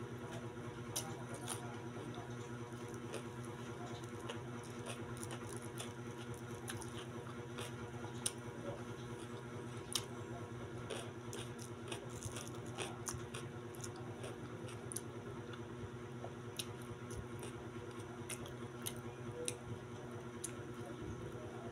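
Close-up eating sounds: chewing, small mouth smacks and clicks as kwek-kwek (battered quail eggs) and cucumber slices are bitten and eaten, scattered irregularly over a steady low hum.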